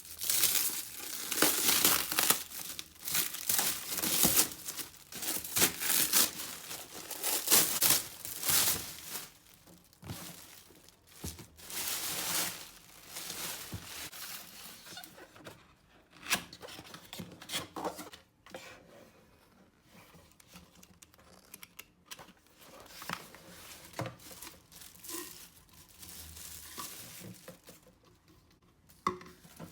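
Packaging being crinkled and torn open by hand, with dense loud rustling for the first ten seconds, then quieter handling with scattered light clicks.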